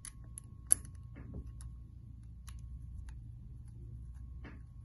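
Allen key turning a small screw into the seal retaining ring of a metal Drylink coupling, giving scattered light metallic clicks and ticks, one sharper click under a second in.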